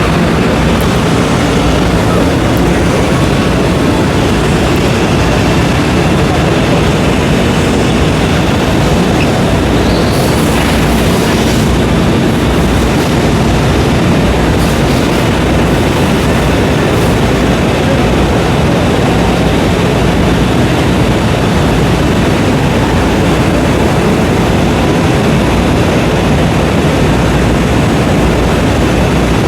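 CNC multi router running a machining cut, heard as a loud, steady machine noise over the din of a busy exhibition hall, with a brief higher hiss about ten seconds in.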